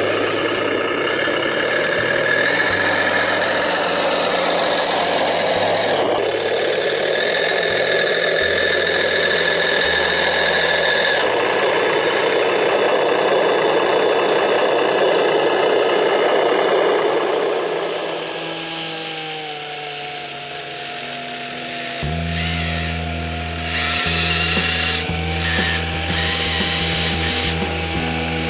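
Electric drive of a radio-controlled model vehicle whining steadily like a small power tool. Background music with a bass line plays underneath.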